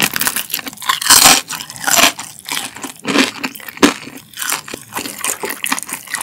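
Close-miked crunching and chewing of a deep-fried galbi (short-rib) dumpling, its crisp fried wrapper crackling with each bite. The loudest crunches come about a second in and again at about two seconds.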